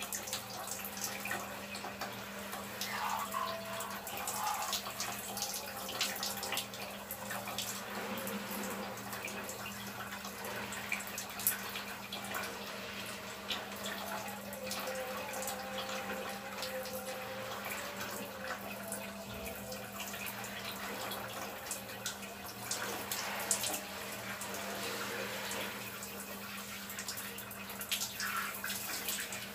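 Water spraying from a handheld shower hose: a steady rush with scattered splashes and drips, over a steady low hum.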